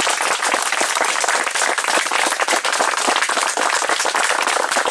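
A crowd applauding, a dense, steady patter of many people's hand claps.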